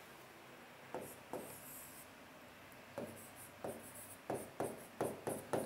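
Faint marker pen writing on a whiteboard: a string of short strokes, a few at first, then coming closer together from about three seconds in.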